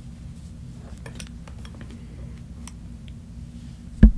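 A steady low hum, with faint scattered light clicks and taps. A sharp thump comes near the end.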